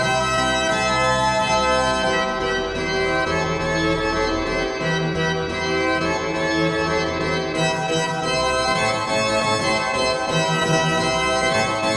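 Organ music: long sustained chords over low bass notes that change every second or two.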